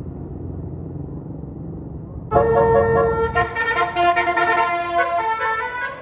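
A tour bus's engine rumbles, then about two seconds in a Basuri telolet musical air horn bursts in loudly and plays a tune, several horn tones sounding together and changing pitch note by note.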